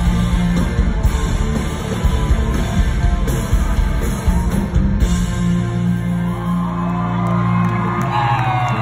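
Pop-punk band playing live and loud through a venue PA: drums and distorted guitars, which give way about halfway through to held ringing chords as the song ends, with crowd shouts coming in near the end.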